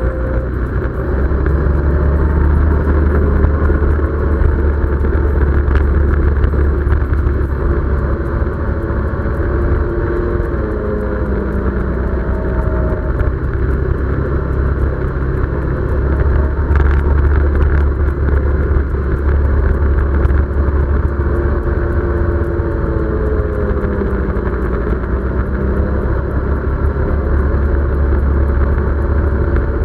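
Side-by-side UTV engine running under way, heard from on board. A steady low rumble sits under an engine note that slowly rises and falls with the throttle.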